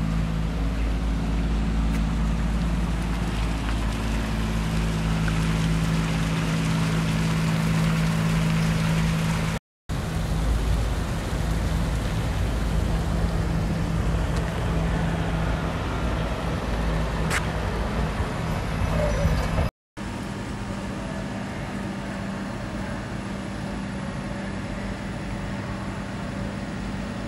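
Street traffic and engine noise: a steady low engine hum and rumble, broken by two short cuts. After the second cut the sound is quieter, a steady hum.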